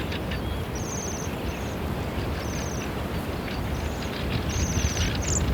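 Bohemian waxwings giving high, thin trilled calls, several short ones about a second apart, the last one rising near the end. They sound over a steady low rumble.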